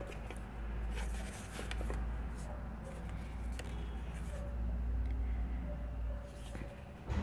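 Paper notecards rustling and sliding as they are handled and lifted out of a cardboard box, in short scattered strokes over a low steady hum.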